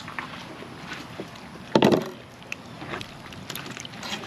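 Knife cutting and small scraping and handling noises while a flathead catfish is filleted along its spine, with one loud, short thump-like scuff about two seconds in.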